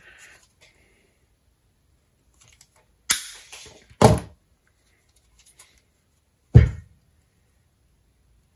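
Handling noise at a wooden worktop while making a wire-rope loading coil: a sharp click about three seconds in, then a heavy knock about a second later and a dull thud near the end, as things are set down or knocked on the wood.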